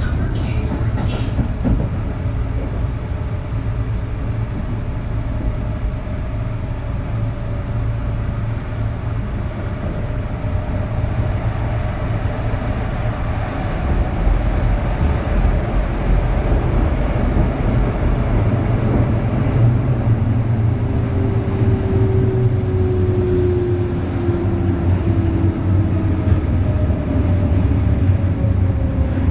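Kintetsu 3200 series electric train running, heard inside motor car Mo3205: a steady low rumble of wheels and traction motors with thin whining tones from its early Mitsubishi GTO VVVF inverter drifting slowly down in pitch, plus a second tone about twenty seconds in. This set is known for an unusual, growling inverter sound.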